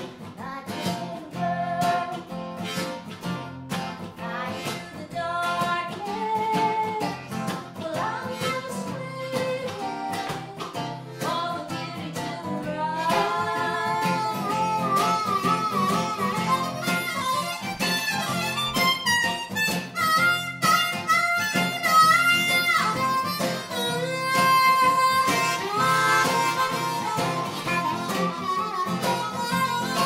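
A harmonica plays a solo over a strummed acoustic guitar and an electric guitar. From about halfway through, its held notes bend and waver, and the music gets louder.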